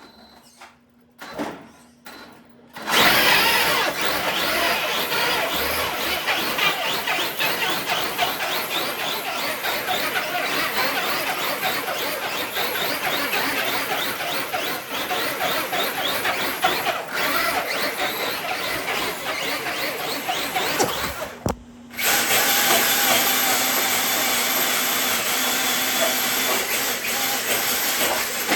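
Electric RC truck motor and drivetrain running hard, starting about three seconds in, cutting out for a moment about 21 seconds in, then running again.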